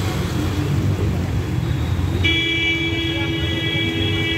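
A vehicle horn sounds once, held for about two and a half seconds from about halfway through. It plays over the steady low rumble of traffic wading through a flooded street.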